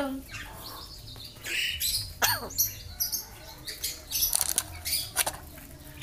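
Javan myna calling in a run of squeaky chirps, whistles and rapid clicks, with a sharp whistle sweeping downward about two seconds in.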